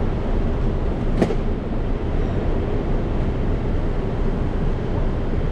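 Steady low city-street rumble, with a single sharp knock about a second in.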